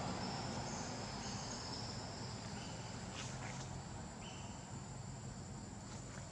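Forest insects calling: a steady high buzz, with shorter trills that start and stop every second or two layered over it, above a faint low rumble. There is a faint tick about three seconds in.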